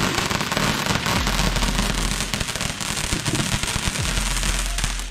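Ground fountain firework burning, a steady hiss of sparks with dense, rapid crackling throughout.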